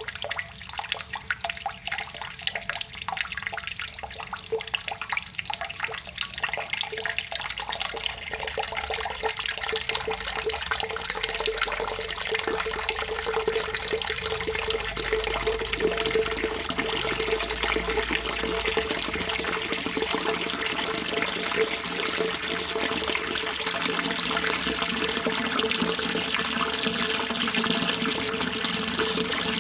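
Water splashing and trickling, separate splashes at first, thickening into a steadier, louder flow after about ten seconds.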